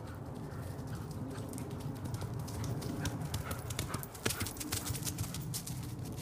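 Hoofbeats of a grey pony cantering on grass, growing louder as it passes close by about two-thirds of the way in, over a steady low rumble.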